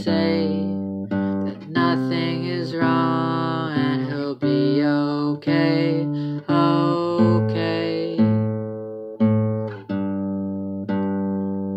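Solo acoustic guitar playing an instrumental passage of chords; each chord is struck and left to ring and fade before the next.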